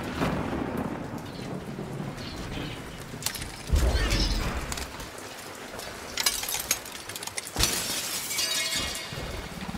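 Steady heavy rain with thunder, and a deep boom about four seconds in. Later come sharp taps and cracks as a dinosaur's claws strike and crack a glass roof.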